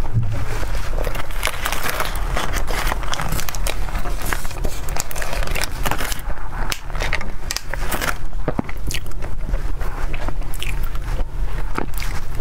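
Close-miked eating sounds: wet chewing, lip smacks and bites into soft bread and cake, a dense run of small clicks and crackles. A clear plastic tray crackles as it is handled, around the middle.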